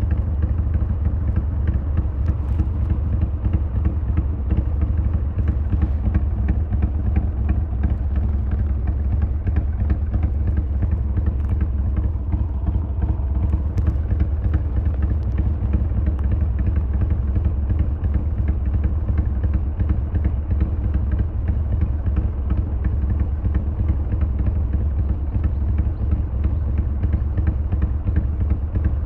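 Harley-Davidson XL1200R Sportster's V-twin engine running steadily while riding, a constant low rumble with a fine rapid pulse.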